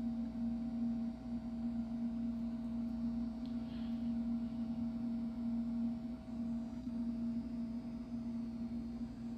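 A steady low hum, one unchanging tone with fainter higher overtones.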